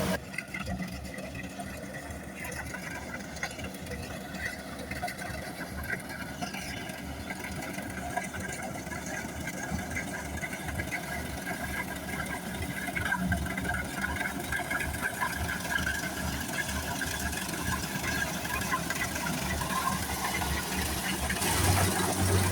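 Kubota combine harvester's engine running steadily with mechanical noise from the machine, growing louder near the end.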